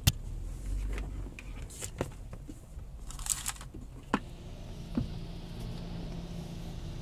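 Clicks and rustling from a handheld camera being moved about inside a car's cabin, over a low steady rumble; the sharpest click comes right at the start. A steady low hum joins about four seconds in.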